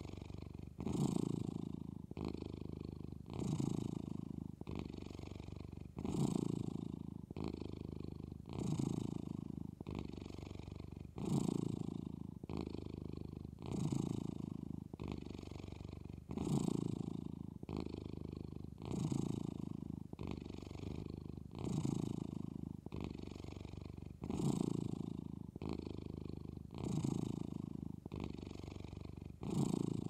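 Domestic cat purring continuously, a louder phase and a softer phase alternating in an even cycle that repeats about every two and a half seconds.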